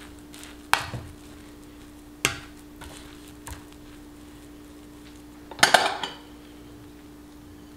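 White plastic rice paddle knocking and scraping against a red enameled cast-iron pot while freshly cooked rice is fluffed: a sharp knock about a second in, another after two seconds, and a louder cluster of knocks near the end.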